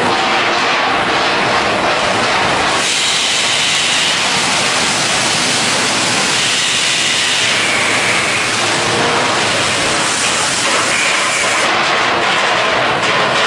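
Loud, steady industrial noise of a hot-dip galvanizing line: a continuous hissing rumble of machinery, changing in character about three seconds in.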